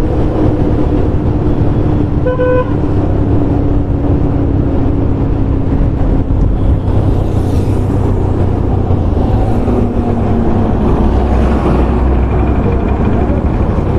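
Steady engine and road rumble from a motorcycle ride through traffic, with one short vehicle-horn toot about two and a half seconds in.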